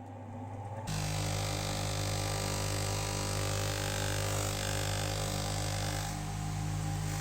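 Motor-driven muslin polishing wheel buffing a steel hammer head. The motor hums steadily, and about a second in the wheel bites, bringing a steady rushing buffing noise that eases slightly around six seconds in before picking up again.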